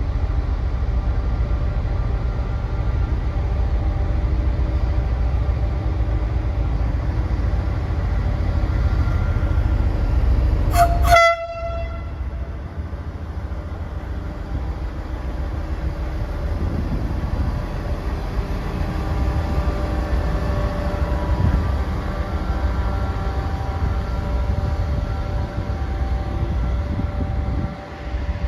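A train running with a steady low rumble, and a short, loud horn toot about eleven seconds in.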